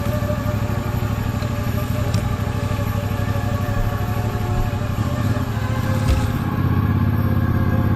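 CF Moto 450MT's parallel-twin engine running at steady low revs under way, with two brief knocks about two and six seconds in; the engine gets a little louder near the end.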